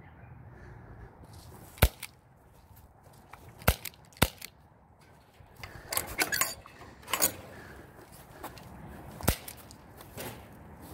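HK USP airsoft pistol firing four single shots at uneven intervals, each a sharp crack: three in the first half and one near the end. Scuffing sounds come between the second group of shots.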